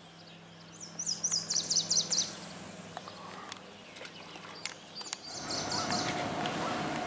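Songbird singing outdoors: a quick phrase of high, rapidly repeated notes about a second in, and another short phrase around five seconds in, over a faint low hum. The background noise grows louder about five seconds in.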